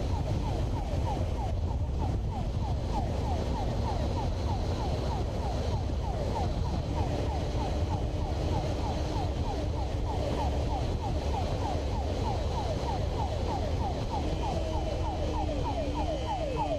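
Police motorcycle's electronic siren yelping in rapid falling sweeps, about four a second, over steady wind rush and the motorcycle's engine, whose pitch rises and wavers near the end.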